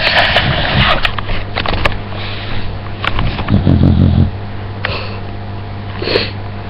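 Loud snoring: a hissing breath at the start, a low buzzing snore lasting nearly a second about three and a half seconds in, and a shorter breath near the end.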